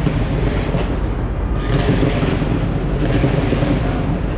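Fireworks display bursting overhead at close range: a continuous deep rumble of overlapping bangs with crackling, swelling a little about a third of the way in and again past the middle.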